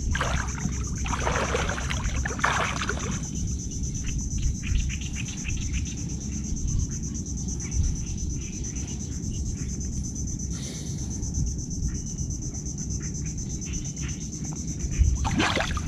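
Steady high-pitched insect trill over a continuous low rumble, with a few short bursts of splashing in water and mud in the first three seconds.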